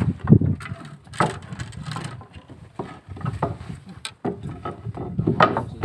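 Small fishing boat's inboard engine running under way, with wind buffeting the microphone and scattered short knocks.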